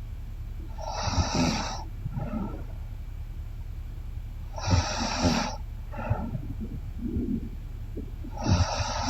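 A woman snoring in her sleep: three snores about four seconds apart, each followed by a softer breath.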